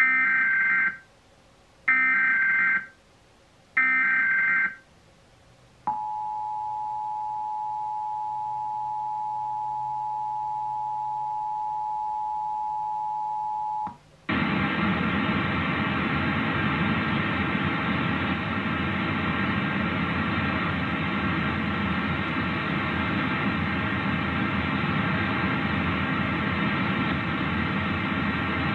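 Emergency Alert System test: three one-second bursts of SAME digital header data, then the two-tone EAS attention signal held steady for about eight seconds. About fourteen seconds in, a loud steady buzzing noise takes over and runs on.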